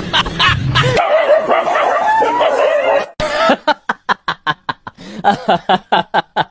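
A dog whining and yelping, then a run of short laughing bursts, about three a second, starting about three seconds in.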